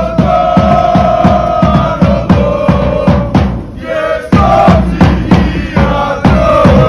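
Music with a steady, fast drum beat under a held melody line, with a short break near the middle.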